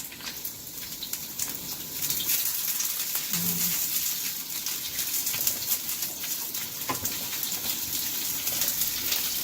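Ginger frying in hot oil in a pan: a steady sizzle with constant small crackles.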